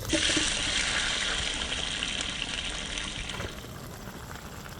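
Water gushing, a steady hiss that is loud for about three and a half seconds and then drops to a weaker rush.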